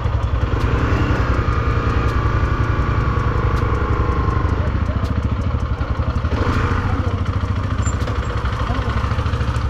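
Zontes 350 single-cylinder motorcycle engine running at low speed in slow traffic, heard from the rider's seat, with a steady fast exhaust pulse.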